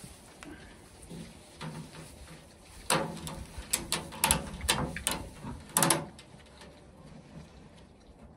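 A strap being tightened around a galvanized metal trash can: a run of about half a dozen sharp metallic clicks and knocks, starting about three seconds in and lasting some three seconds.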